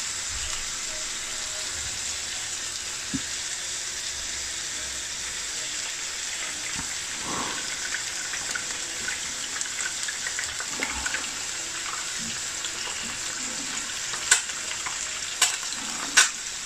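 Egg frying in hot cooking oil in a nonstick frying pan: a steady sizzle, with a few sharp crackles near the end.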